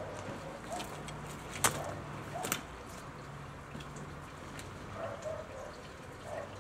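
A few sharp clicks and knocks, the two loudest about a second apart, from a rider getting set on a Yamaha YZ250 two-stroke dirt bike to kick-start it; the engine is not running.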